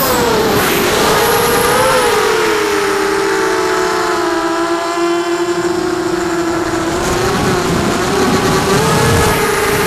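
Brushless motors and propellers of a 6-inch 4S FPV quadcopter whining in flight, recorded by the onboard camera. The pitch drops sharply at the start as the throttle comes off, holds low and steady, then rises and wavers again near the end.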